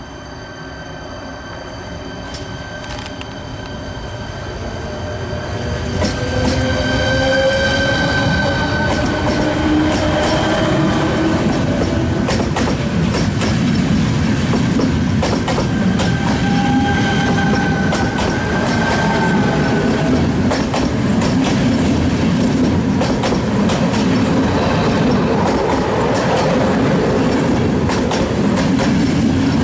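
A ČD class 471 CityElefant electric multiple unit train, three units coupled, pulling away. Its traction motors give a whine that rises in pitch as it speeds up. It grows louder over the first few seconds, then passes with steady wheel noise and the rhythmic clatter of wheels over rail joints.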